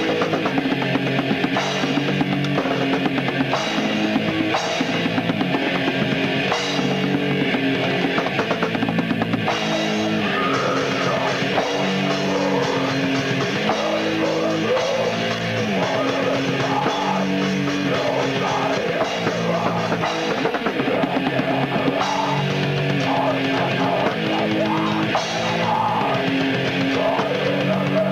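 Heavy metal band recording: a distorted electric guitar riff moving in blocky steps over fast, constant drum kit playing. The sound is dull at the top, as a tape demo is.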